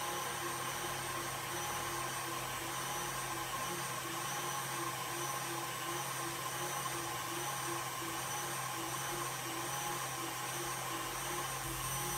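Electric tilt-head stand mixer running steadily, its whisk beating cream in a steel bowl, with a faint pulsing about twice a second.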